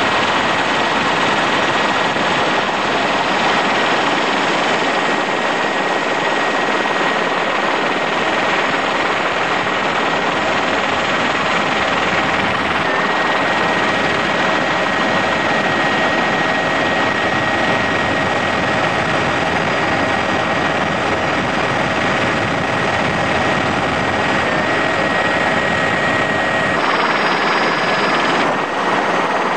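Helicopter cabin noise: a loud, steady rush of engine and rotor sound with a thin constant whine running through it.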